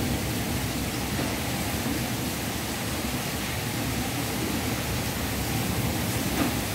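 Heavy rain and wind of a severe thunderstorm: a steady, unbroken rushing.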